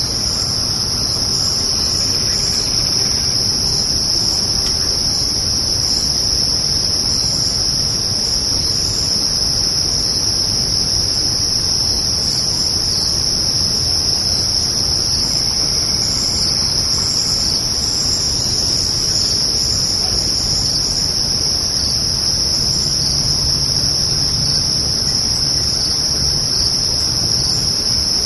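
A dense chorus of crickets trilling without a break, high-pitched and steady, over a low rumble.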